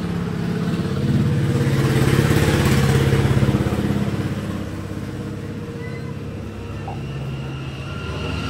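A motor vehicle engine running close by, getting louder from about one second in and easing off after about four seconds.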